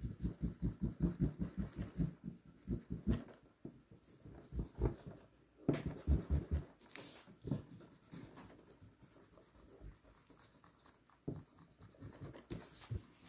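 White eraser rubbed back and forth over a drawing on a sheet of paper. The strokes come quickly and evenly, about five a second, for the first three seconds, then turn slower and sparser.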